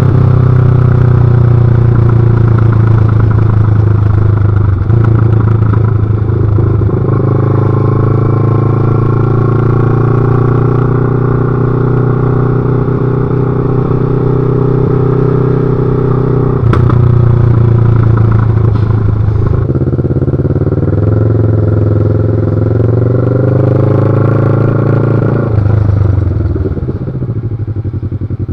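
Kawasaki ER-6f parallel-twin engine running with its silencer removed, loud and open, its pitch falling back and climbing again with gear changes under way. Near the end the throttle closes and the engine note drops away as the bike slows.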